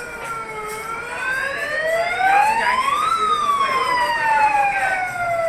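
Emergency vehicle siren wailing, its pitch dipping, rising slowly to a peak about three seconds in, then falling again.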